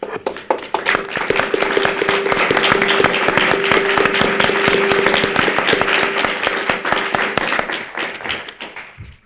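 Audience applauding. It starts suddenly, holds steady for several seconds and fades out near the end, with a steady held tone sounding through the middle of it.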